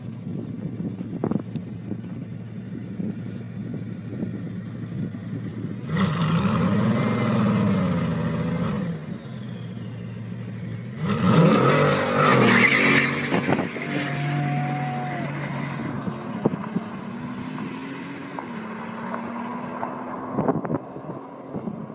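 Bugatti Veyron's quad-turbo W16 engine running at low revs, revved up and back down about six seconds in, then accelerating hard away about five seconds later, its note fading with distance.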